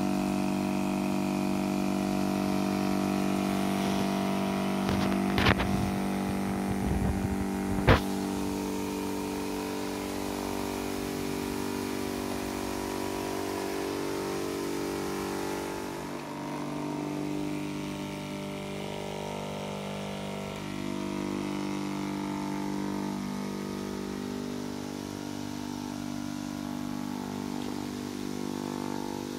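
12 V diaphragm water pump running steadily with a buzzing hum, pressurising a line of mist nozzles. A few sharp knocks sound about five and eight seconds in, and the hum's tone shifts slightly about halfway through.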